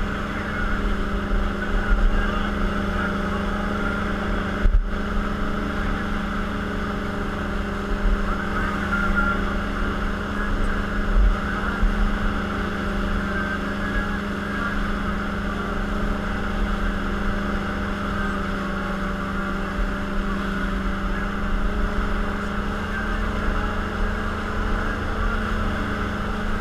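Wake boat's inboard engine droning steadily, with the rush of the breaking wake close by and wind rumbling on the microphone.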